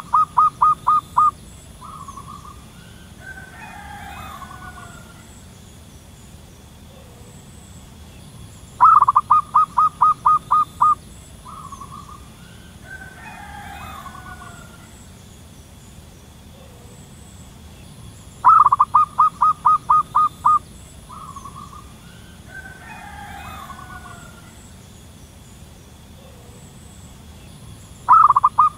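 Wild zebra dove cooing: a rapid run of about eight short, even coos, then a short extra note, repeated about every ten seconds. Each run is followed by a fainter, warbling call with gliding notes.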